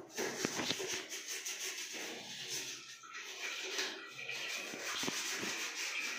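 Hands rubbing and scrubbing a plastic toilet-cistern siphon flush valve clean: a scratchy rubbing noise with a few light knocks near the start.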